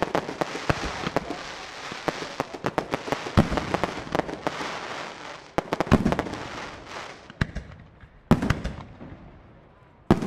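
Professional display fireworks: a rapid, dense run of bangs over continuous crackling for about seven seconds, then a few separate loud shell bursts a second or more apart near the end.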